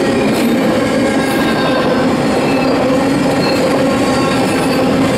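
Double-stack intermodal well cars rolling past: a steady, loud rumble of steel wheels on rail, with thin squealing tones from the wheels coming and going.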